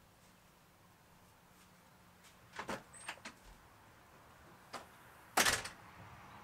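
Storm door being opened and shut: latch clicks about two and a half to three seconds in, another click near five seconds, then the door shuts with a loud clack about five and a half seconds in, followed by a soft hiss.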